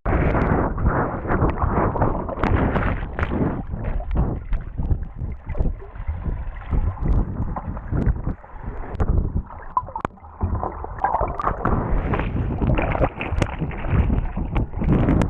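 Water rushing and splashing close to the microphone, with wind buffeting it, loud and uneven with constant surges.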